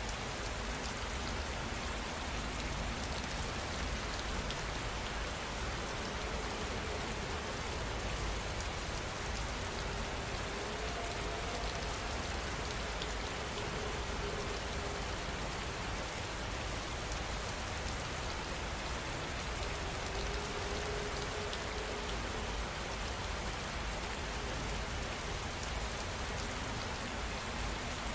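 Steady rain falling: an even, unbroken hiss of raindrops on surfaces.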